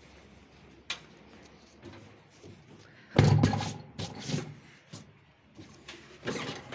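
Handling thumps and rubbing as a hand presses and pats a padded tractor seat cushion, with a sharp click about a second in and the loudest thump about three seconds in, followed by a few smaller knocks.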